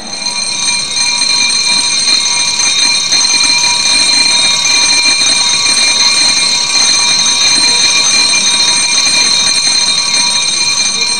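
Parliamentary quorum bell ringing continuously with a steady, high ring. It is rung to signal the opening of parliamentary proceedings.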